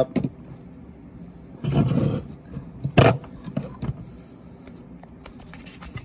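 Handling noise from a plastic smoke detector head and the camera being moved: a short rushing rub about two seconds in, one sharp knock about three seconds in, and scattered small clicks.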